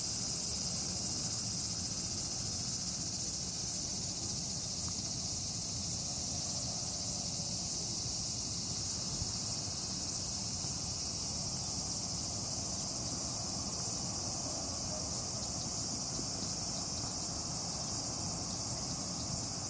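A chorus of insects buzzing in a steady, continuous high-pitched drone.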